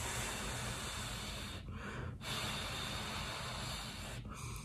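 A person huffing air in and out through the mouth around a bite of hot food, trying to cool it. There are two long, airy breaths with a short break between them.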